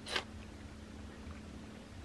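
A crisp bite into a piece of raw red bell pepper: one loud crunch just after the start.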